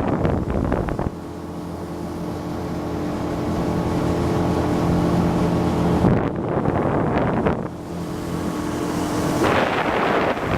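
Boat motor running steadily, a constant humming drone, with wind buffeting the microphone at the start, in the middle and near the end.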